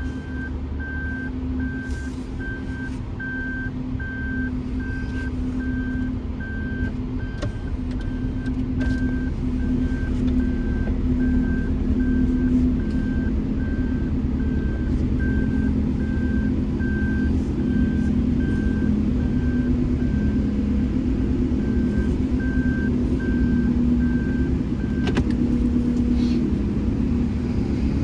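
A car's electronic warning beeper chiming steadily, a little faster than once a second, over the engine and road noise heard inside the cabin. It stops abruptly near the end, while the engine noise grows a little louder.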